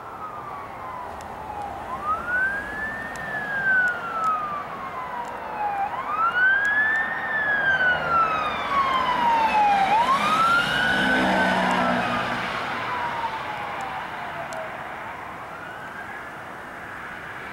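Police car siren on the wail setting: each cycle rises quickly and then falls slowly, about every four seconds. It grows louder as the cruiser approaches, passes close about eleven seconds in with a brief low engine sound, and then fades as it drives away.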